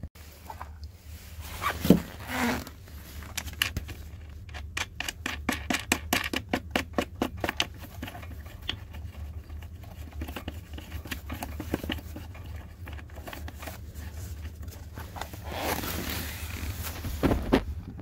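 Handling noises as a compressor's rubber mounting feet are fastened to a plywood base: a sharp knock, then a run of quick clicks at about four or five a second, and scraping and knocks near the end, over a steady low hum.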